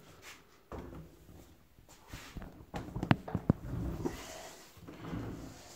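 Handling noises: light knocks and clicks from the white PVC pipe and fittings of a shop-vac cart being gripped and moved by hand, with two sharper clicks about three seconds in.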